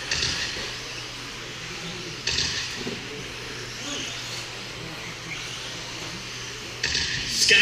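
1/10-scale 2wd RC buggies racing: the whine of their electric motors and the hiss of tyres on the track, surging louder as cars accelerate past about two seconds in and again near the end.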